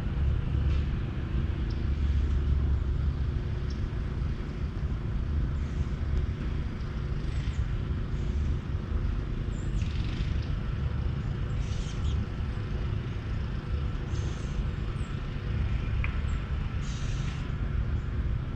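Outdoor field recording: a steady low rumble with short, high bird calls every second or two.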